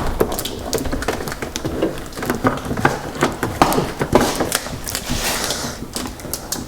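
Plastic moisture-barrier sheet on a car door crinkling and rustling as it is pressed back into place, with many irregular sharp crackles and taps.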